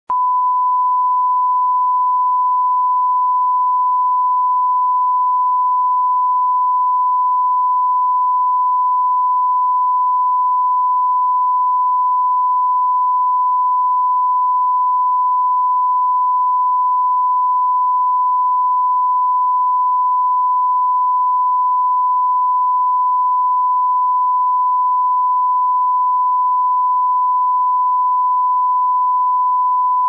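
Broadcast line-up test tone: a loud, single steady 1 kHz sine tone played with colour bars, unchanging in pitch and level, cutting off abruptly at the end.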